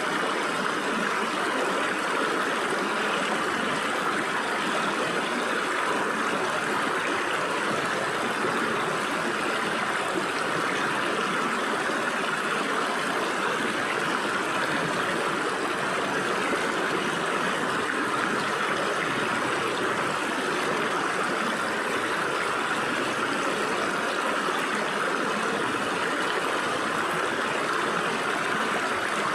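A rocky stream, its water running and gurgling steadily through gaps between the rocks.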